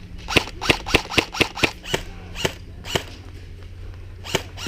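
Airsoft guns firing: a quick string of about six sharp shots, roughly four a second, then three single shots about half a second apart, and two more near the end.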